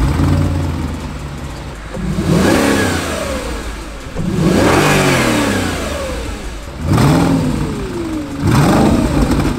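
Audi A6 C6 4.2-litre V8 with an aftermarket Eisenmann exhaust, revved at standstill: a steady idle, then four blips of the throttle, each rising and falling back, the second held longest.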